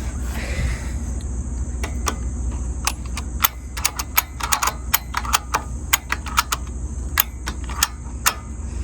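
Retractable ratchet strap being cranked tight: a run of sharp mechanical clicks from the ratchet, several a second in uneven spurts, over a steady low hum.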